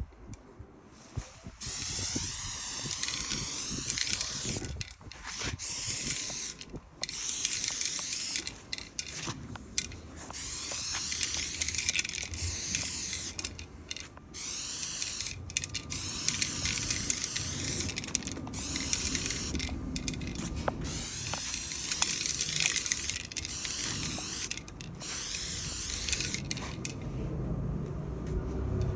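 Paint spray gun hissing in repeated bursts of one to three seconds, with short breaks between them as the trigger is pulled and released.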